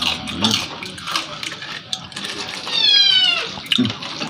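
A cat meowing once about three seconds in: a single high call of about half a second that falls in pitch, over scattered faint clicks.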